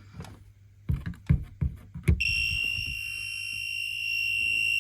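A few handling clicks and knocks, then, about two seconds in, a two-pole voltage tester's buzzer sounds a steady high-pitched tone, signalling mains voltage on the grey permanent live wire.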